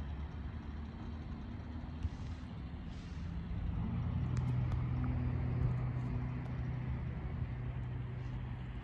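A low engine hum from a motor vehicle, growing louder about four seconds in, holding for a few seconds and then easing, over a steady low outdoor rumble.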